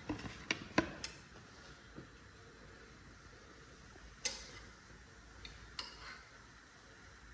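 Metal spoon clinking against a glass jar as pizza sauce is scooped out: a quick run of sharp clinks in the first second, then single clinks about four and six seconds in.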